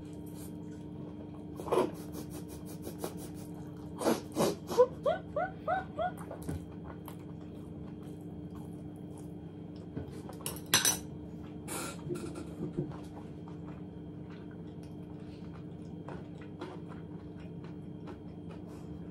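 Eating with a fork from a ceramic plate: scattered clinks and taps of the fork on the plate, the loudest about eleven seconds in, over a steady low hum. About four to six seconds in comes a run of short rising vocal sounds.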